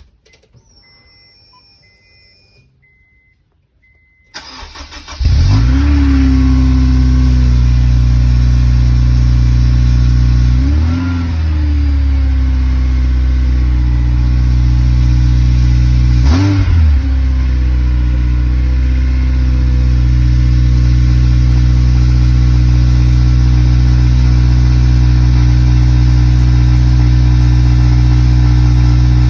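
Honda CL7's K20A four-cylinder engine with a used Mugen exhaust: a few faint beeps, then it cranks, catches with a rev flare, is blipped twice and held at a steady loud run. The exhaust is known to buzz ("be-be") at 1800–2000 rpm, which the owner suspects comes from a broken weld in the middle silencer.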